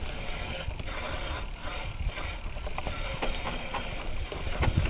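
Mountain bike rolling downhill on a grass and dirt trail, heard from a chest-mounted action camera: a steady low rumble of wind and tyres on the ground, with scattered clicks and rattles from the bike.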